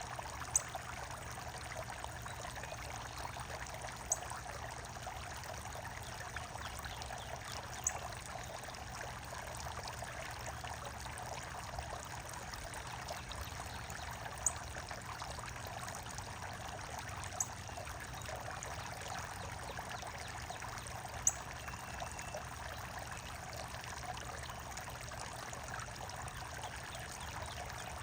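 Running water trickling steadily. A few short, sharp, high ticks sound every few seconds.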